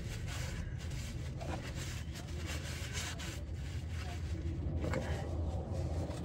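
Soft rubbing and scraping of a gloved hand and rag working a bolt back in by hand under a car, over a steady low hum.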